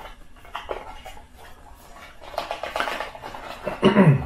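Small cardboard product box being opened by hand and its cardboard insert slid out: rustling and scraping with light clicks and taps, busiest two to three seconds in. A short low voice sound, falling in pitch, is the loudest thing near the end.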